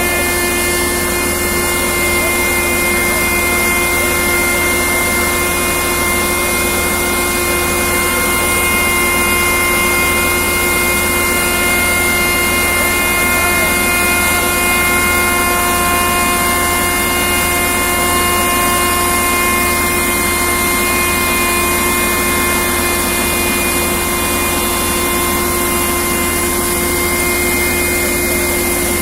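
Machinery running steadily, a constant mechanical drone with several fixed whining tones that do not change.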